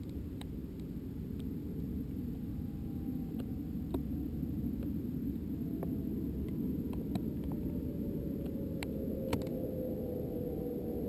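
Steady muffled rumble of air noise on the microphone of a weather balloon's onboard camera, with scattered faint clicks and a faint tone slowly falling in pitch.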